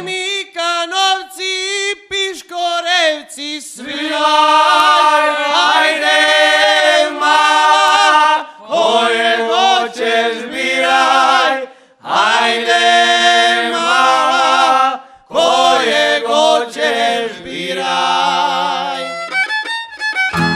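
Male folk vocal group singing a Šokac kolo tune in close multi-part harmony, largely without instrumental backing. The singing comes in phrases with short breaks between them, and the band's bass comes back in at the very end.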